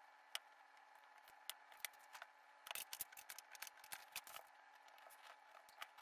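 Faint clicks and taps of thin wooden truss sticks, pins and a glue bottle being handled on a template board, with a quick run of clicks in the middle, over a low steady hum.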